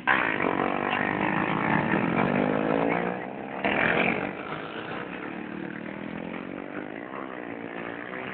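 Small motorcycle engines revving hard as they ride past, their pitch rising and falling. They are loudest in the first few seconds, with a short loud burst about four seconds in, then run on more faintly.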